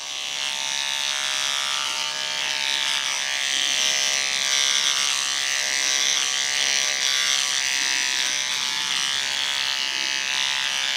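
Cordless electric beard trimmer running steadily while cutting through a beard. It makes a steady motor hum, with a hiss that shifts as the blade passes through the hair.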